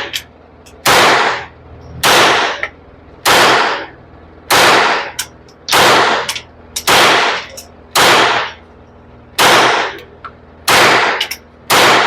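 Suppressed Taurus TX22 .22 LR pistol firing a steady string of about ten shots, roughly one every second and a quarter, each crack trailing off in a short echo. Small metallic clinks fall between some of the shots.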